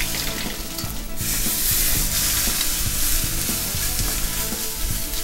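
Thick bone-in prime rib steak sizzling on a hot gas grill grate as it is turned with tongs. The sizzle grows louder about a second in, as the unseared side goes down on the grate to sear.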